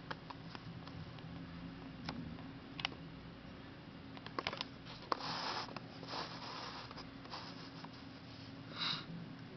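Camera handling noise on a DSLR's built-in microphone: scattered sharp clicks and brief rustling about halfway through, as the camera is moved and refocused, over a low steady hum.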